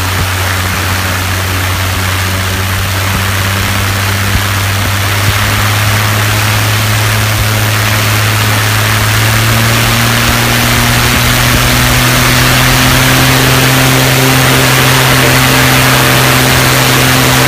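Light aircraft engine running on a ground run with its newly fitted propeller turning, over a steady airy rush. The engine speed rises gradually a little past halfway and then holds steady at the higher speed.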